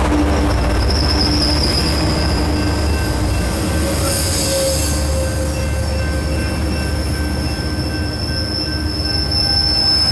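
Metrolink bilevel passenger coaches rolling past at low speed with a heavy low rumble, as the train brakes to a stop. A high-pitched steady wheel squeal comes in about a second in, fades, and returns for the second half.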